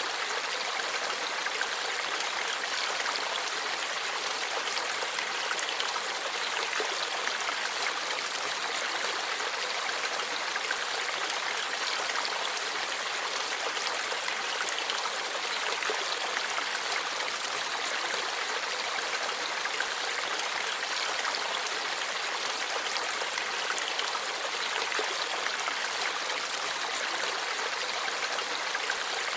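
Forest stream flowing and babbling over rocks, a steady rush of water.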